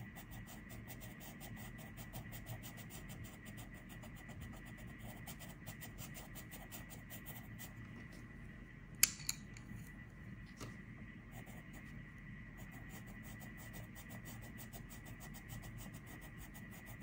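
Coloured pencil scratching on paper in quick back-and-forth shading strokes. The strokes stop about nine seconds in for a sharp tap and a smaller one, then start again.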